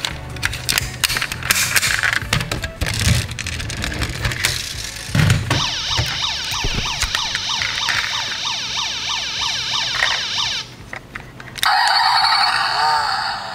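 A toy emergency vehicle's electronic siren: a fast rising yelp repeating about three times a second, starting about five seconds in and cutting off about five seconds later. Before it come clicks and knocks, and near the end a different, noisier electronic sound starts.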